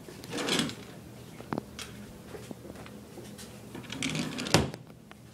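Household handling sounds: a rustling swish, a few light clicks, and a sharp knock about four and a half seconds in.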